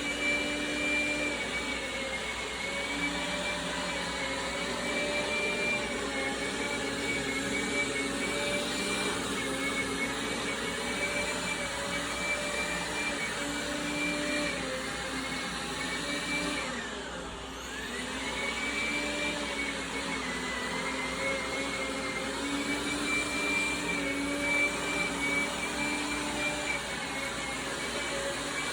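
Dreame Bot L10 Pro robot vacuum running, its suction fan and brushes making a steady hum with a slightly wavering whine. About seventeen seconds in the level dips briefly and the pitch drops and then comes back up.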